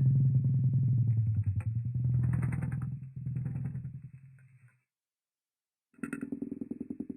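Muffled motor running with a rapid pulsing beat. Its pitch drops just after it starts, then it runs evenly, fades out partway through, and is silent for about a second. It then starts again at a higher pitch that falls back near the end.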